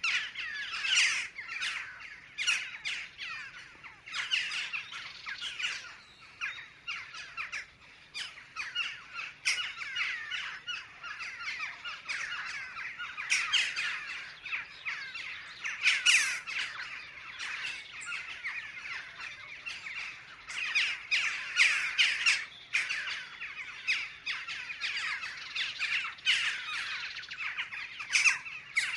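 A flock of jackdaws calling: many short, harsh calls overlapping continuously, swelling louder in waves.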